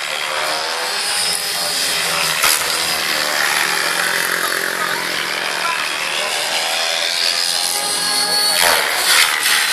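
Gaui X7 electric RC helicopter in flight: the buzzing whine of its electric motor, gears and main rotor, rising and falling in pitch as it manoeuvres, loudest near the end.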